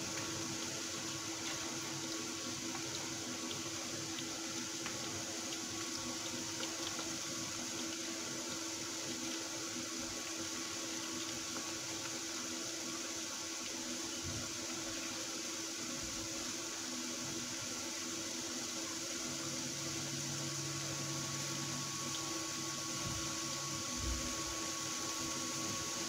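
Potato fries deep-frying in a small pan of hot oil: a steady sizzling hiss with faint scattered crackles as the pale fries cook through. A faint steady hum runs beneath.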